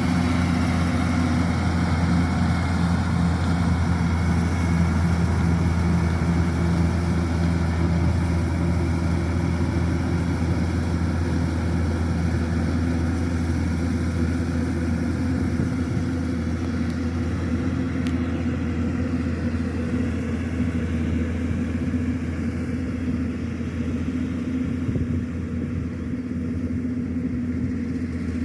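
Kubota DC-105X combine harvester's diesel engine running steadily, a constant low drone that grows a little fainter and duller over the last third.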